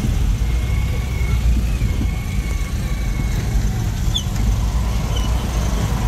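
A car running along the road, heard from inside the cabin: a steady low rumble of engine and road noise.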